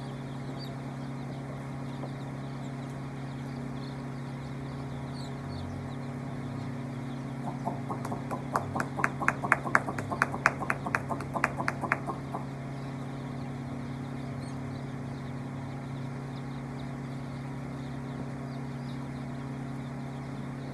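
Young chicks peeping faintly over a steady low hum. Around the middle comes a rapid run of about twenty sharp clicking chirps, about five a second, louder than anything else.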